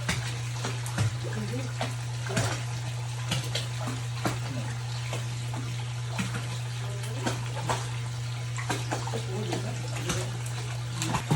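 Water running, with a steady low hum and scattered short clicks and knocks.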